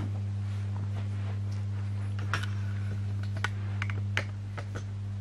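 A steady low hum with a few scattered light clicks.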